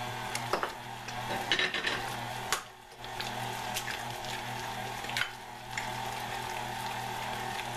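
KitchenAid stand mixer running steadily, its flat beater turning through thick brownie batter in a stainless steel bowl as the eggs are beaten in, with scattered clicks and knocks over the motor hum.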